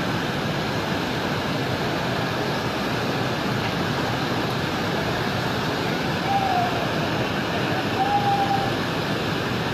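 Muddy floodwater of the Swat River in spate, rushing and churning steadily with debris in the torrent. Two brief faint calls, like distant shouts, come through about six and eight seconds in.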